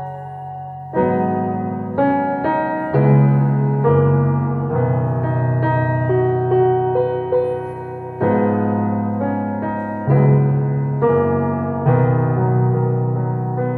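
Solo piano playing a slow original composition: sustained chords over low bass notes. A held chord fades in the first second, then new chords are struck about once a second.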